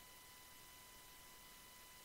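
Near silence: a faint steady hiss with a thin, steady high whine.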